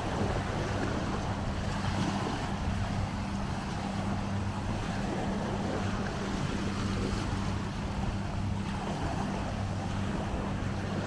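Shallow seawater lapping and sloshing at the beach, with wind on the microphone and a steady low hum underneath.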